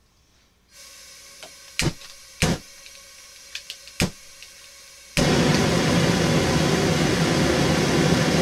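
Homemade propane forge burner being lit: a faint hiss and several sharp clicks of a long-reach lighter, then about five seconds in the burner catches with a sudden loud, steady rush of flame that keeps burning.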